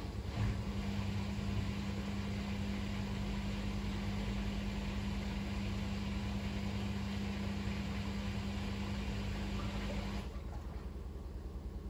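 Fisher & Paykel WM1480P front-loading washing machine running its intermediate spin: a steady hum with a rushing noise. About ten seconds in, the hum and rushing cut off, leaving a quieter, rhythmic drum sound.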